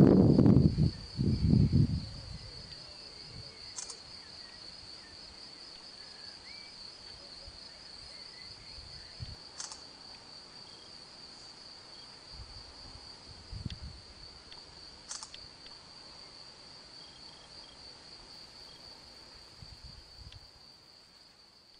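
An insect's steady, high-pitched, unbroken trill. A loud low rumble fills the first two seconds, and a few faint clicks come later.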